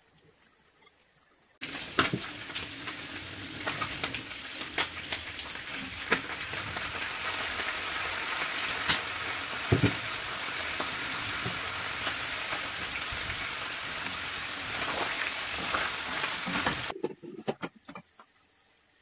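Chicken livers and sliced onions sizzling hard in a hot frying pan, a loud hiss with many sharp pops and crackles. It starts suddenly about a second and a half in and cuts off abruptly near the end, followed by a few light knocks as the glass lid is set on the pan.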